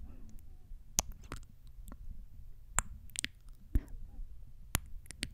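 Close-up kissing sounds of lips smooching directly against a microphone grille: about half a dozen sharp smacks at irregular gaps, over a low rumble.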